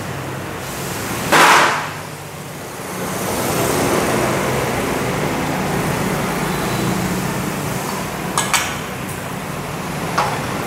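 Motorcycle workshop noise: a short loud burst of hiss-like noise about a second and a half in, then a steady mechanical hum, with a few sharp metallic clicks near the end.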